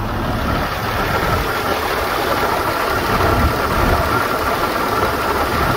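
Cummins 5.9-litre inline-six turbo diesel idling steadily, heard up close at the open engine bay.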